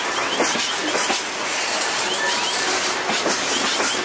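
Open freight wagons rolling slowly past, their wheels knocking over the rail joints, with brief high squeaks from the wheels and running gear.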